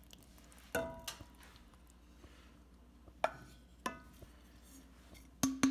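A few separate knocks of a wooden spoon and the sauce container against an enameled cast-iron Le Creuset Dutch oven, some leaving a brief ring from the pot. Near the end, background music with quick wood-block taps starts.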